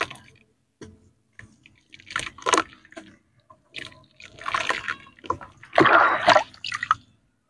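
Wet chunks of sandy dirt crumbled by hand into a tub of muddy water: gritty crumbling, dripping and splashing in several bursts, the loudest near the end. It cuts off suddenly just before the end.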